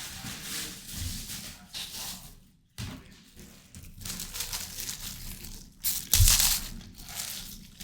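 Crinkling and rustling handling noise in irregular bursts, loudest in a burst about six seconds in.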